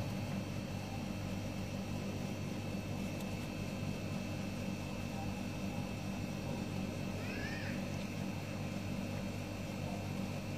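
Steady low machine hum, with one short, faint cat meow about seven seconds in.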